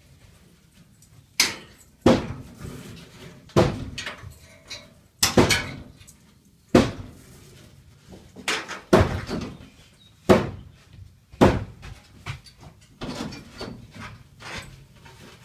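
Loose steel truck grille being knocked and banged against the inside wall of a van-bodied truck: about nine sharp bangs at irregular intervals of a second or two, each with a short echo in the hollow box body.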